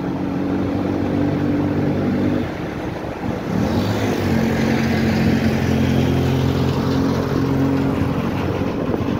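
Engine of a moving vehicle running steadily, over road and wind noise. Its note drops away about two and a half seconds in, then rises again a second later as it picks up speed.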